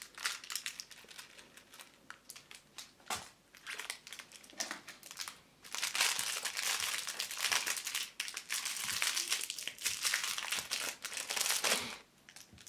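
Thin clear plastic wrapper crinkling as a small toy is handled and unwrapped: scattered crackles at first, then continuous crinkling from about halfway, stopping shortly before the end.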